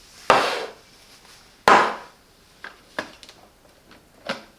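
Two sharp knocks about a second and a half apart, then several lighter clicks and taps: things being handled and set down on a hard surface.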